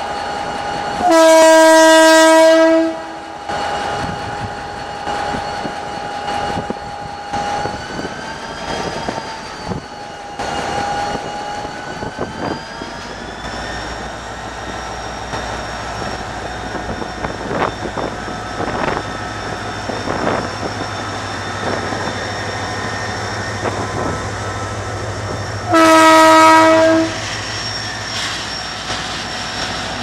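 GM GT22 diesel-electric locomotive sounding its multi-tone horn in a long blast about a second in and a shorter one near the end. In between, the engine runs as the locomotive pulls away from the station, its low note building from about halfway, with wheel clicks over rail joints as the train passes.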